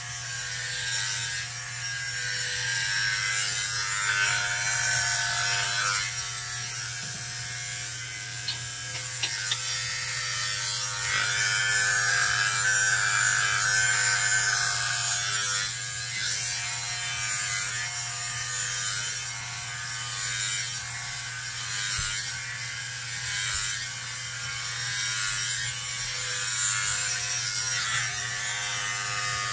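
Electric hair clippers buzzing steadily while cutting very short hair close to the scalp, the buzz growing louder and softer by turns as they move over the head.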